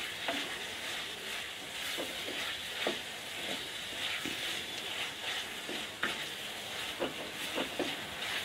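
Small onions and tomatoes sizzling in sesame oil in an earthenware pot. A wooden spatula stirs them, scraping and knocking against the clay about once a second.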